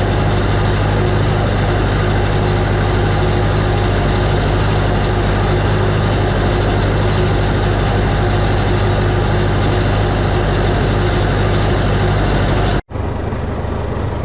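Tractor engine running steadily at a constant speed, loud and close. It cuts off suddenly near the end.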